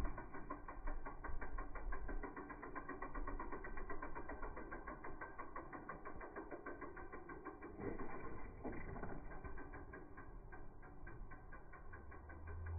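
Bicycle freewheel hub ticking rapidly and evenly as the bike coasts, with a couple of dull thuds about eight seconds in.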